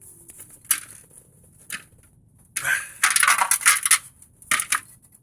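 Metal brake caliper parts clinking and rattling as the pistons are pushed back into their bores by hand. There are a few single clicks and, in the middle, a dense clatter of about a second and a half; the pistons are going in hard.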